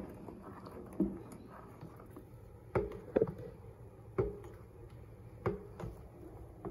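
Cooking spoon knocking against the sides of a stainless steel pot while stirring thick apple butter: about eight irregular knocks, roughly one a second, each with a brief ring.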